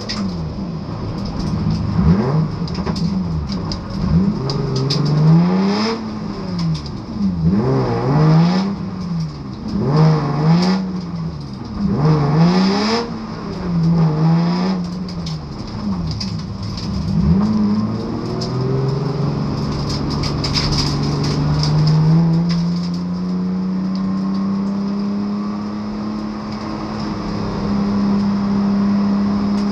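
BMW Compact competition car's engine, heard from inside the cabin, repeatedly revving up and dropping back, roughly every one and a half to two seconds, as the car accelerates and lifts. Partway through, the revs climb more gradually and then hold at a steady higher pitch.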